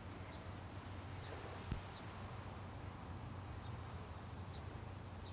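Faint outdoor background: a steady low hum and a thin, steady high-pitched whine, with one soft knock a little under two seconds in.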